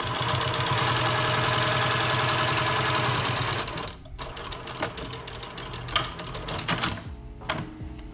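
Post-bed sewing machine running fast as it stitches leather, a dense rapid stream of needle strokes for about four seconds before it stops. After that come scattered clicks and knocks.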